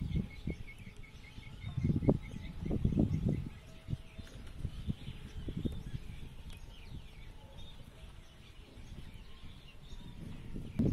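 Outdoor ambience with small birds chirping: a quick run of repeated high notes at the start, then scattered faint calls. About two to three and a half seconds in there are a few low, dull handling sounds.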